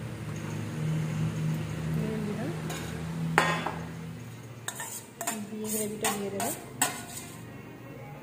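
Steel spoon scraping and clinking against a metal bowl and the aluminium pressure cooker while gravy is spooned onto rice. There are a couple of knocks about three seconds in, then a quick run of about six sharp clinks.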